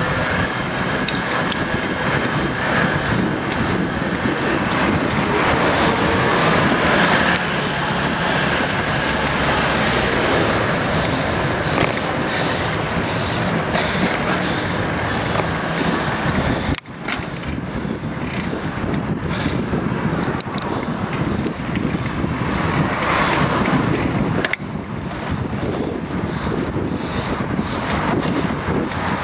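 Steady city traffic and road noise heard from a moving bicycle: cars and scooters running in the street around it. The noise dips sharply for a moment a little past halfway, then carries on.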